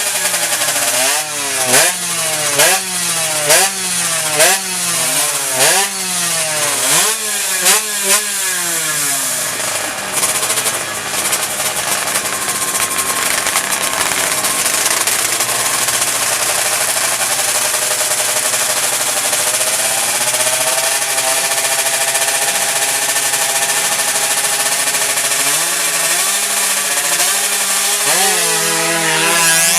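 Two-stroke underbone drag bike engine, tuned to 116cc, blipped in quick throttle revs about once a second. It then holds a steady high rev for a long stretch and climbs again near the end.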